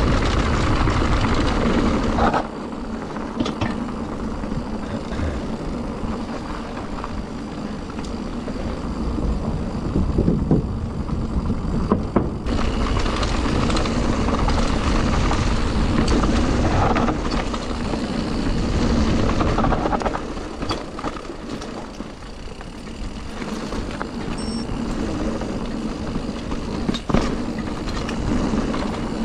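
Riding noise of an electric mountain bike on a trail: wind rushing over the action camera's microphone and tyres rolling, with a few sharp knocks from bumps.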